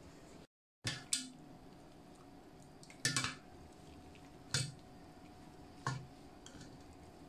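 A handful of short knocks and clinks, spaced a second or more apart, from a metal mesh sieve and an enamel pot being handled while cheesecloth holding fresh curds is twisted over it to drain the whey, over a faint steady hum.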